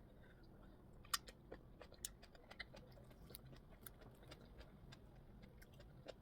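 Faint, irregular wet mouth clicks and smacks of someone eating plantain fufu with okra soup, the loudest about a second in.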